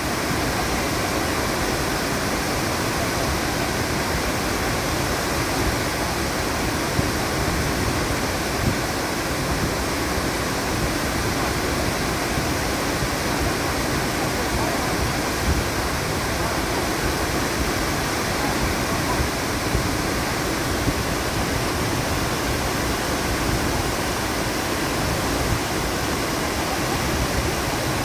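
A waterfall rushing: the steady, even noise of falling water, unbroken throughout.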